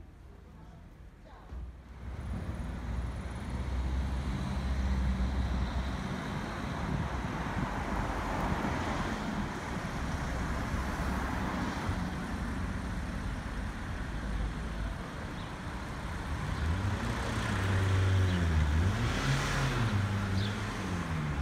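Road traffic: cars driving by with engines running, a steady noisy rumble that sets in about two seconds in. Near the end a vehicle runs close by, its engine pitch swinging up and down.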